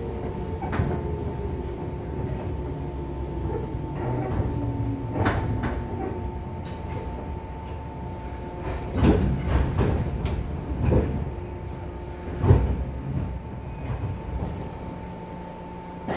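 JR 415 series 500-subseries electric train heard from inside the passenger car, slowing to a stop at a station: a whine that falls in pitch over the first few seconds over a steady running rumble and hum. A few loud thumps of the wheels come about halfway through, and the running sound dies down near the end.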